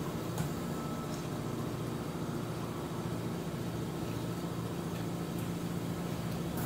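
A steady low mechanical hum throughout, with a few faint clicks of a metal fork on a ceramic bowl as lettuce salad is speared.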